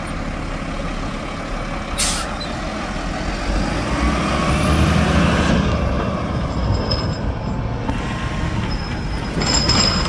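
Mack front-loader garbage truck's diesel engine pulling away and accelerating, its rumble building louder in the middle. A brief sharp air hiss from the air brakes comes about two seconds in, and another hiss near the end.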